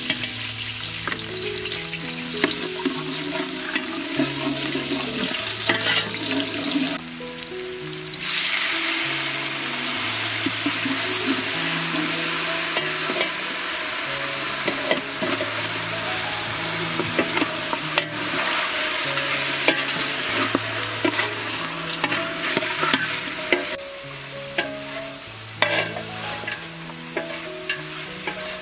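Sliced shallots and garlic sizzling in hot oil in a large aluminium stockpot, with a metal ladle stirring and knocking against the pot. Soft background music with a slow stepping bass line runs underneath.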